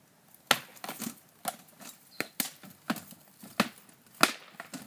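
Rattan swords in SCA heavy combat striking shields and armour in a rapid exchange. About a dozen sharp knocks come in under five seconds, the loudest about half a second in and about four seconds in.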